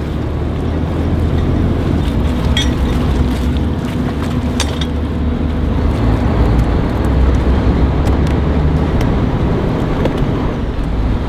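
Small log-towing tugboat's diesel engine running, a steady low rumble that swells a little in the middle. Two short sharp knocks come at about two and a half and four and a half seconds in.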